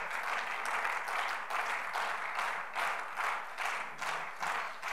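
Applause from the chamber: many people clapping steadily together.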